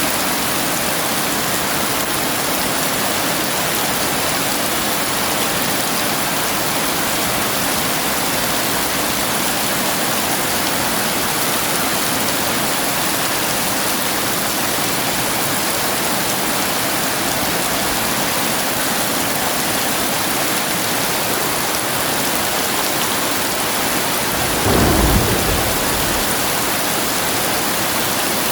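Heavy rain pouring steadily. A short, deep rumble of thunder rises over it near the end.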